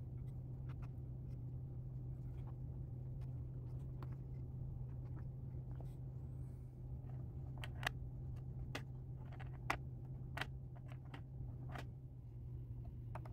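Light clicks and taps of small tools and clock parts being handled at a workbench, over a steady low electrical hum, with a few sharper clicks in the second half.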